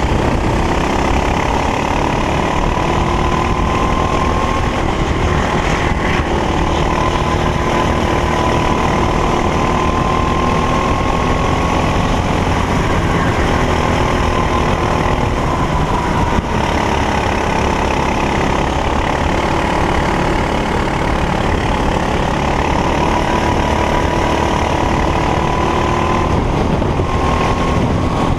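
Racing kart engine running flat out, its pitch climbing slowly and dropping back several times as the kart accelerates and slows for corners.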